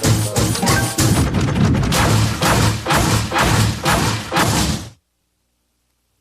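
Cartoon soundtrack music with a rapid run of crashing, whacking hits, about three a second, that cuts off suddenly about five seconds in, leaving dead silence.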